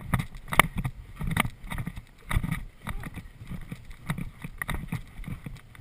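A horse's hooves thudding on turf at a brisk cross-country pace, a regular beat of strides heard close up from the rider's seat.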